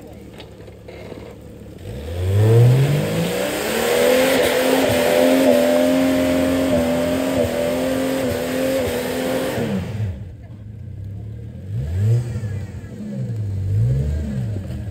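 Off-road 4x4's engine revving hard, climbing steeply in pitch about two seconds in and held at high revs for about eight seconds before dropping off. A few short throttle blips follow near the end.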